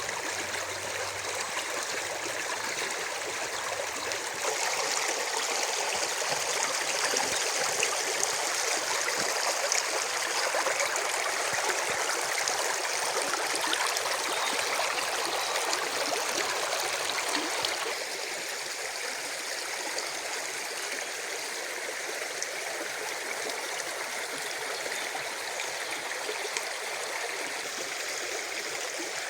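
Spring water running in a steady rush. It grows louder about four seconds in and softens again at about eighteen seconds.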